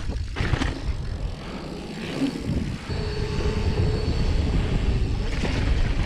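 Wind buffeting the microphone on a downhill run, mixed with mountain bike tyres rolling over pavement and gravel, as a rough low rumble. A faint steady hum comes in about three seconds in and fades a couple of seconds later.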